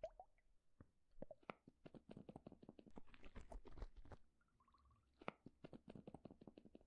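Faint wet squishing and clicking of a thick liquid, a dense run of small crackles and pops that thickens about two seconds in and again near the end.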